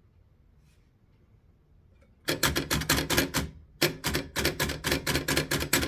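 1932 Royal Signet manual typewriter being typed on: its typebars clack against the platen in a fast run of keystrokes starting about two seconds in. After a brief pause comes a second run.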